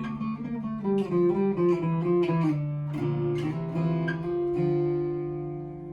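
Martin Road Series acoustic-electric guitar being played: a run of picked notes and chords, ending on a chord left ringing for the last second or so.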